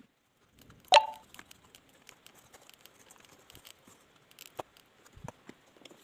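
Parts of a small DC cooling fan being handled during repair: a sharp clink about a second in, then scattered light clicks and taps.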